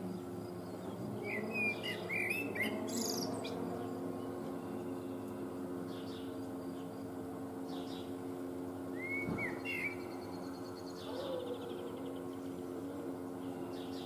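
Male Eurasian blackbird singing: a phrase of whistled, gliding notes that ends in a high squeaky twitter about a second and a half in, and another short whistled phrase about nine seconds in, with pauses between. A steady low hum runs underneath.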